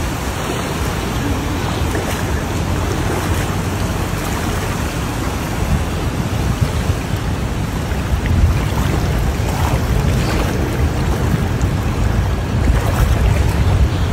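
Steady rush of floodwater, with wind buffeting the microphone.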